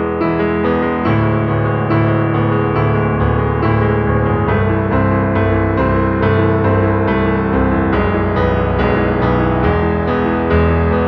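Background music played on piano or electric keyboard, with a bass line and steady repeated notes about twice a second.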